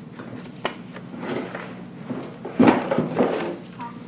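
Cardboard box and its packed parts being handled and tipped out: rustling with scattered knocks, and a louder clatter about two and a half seconds in.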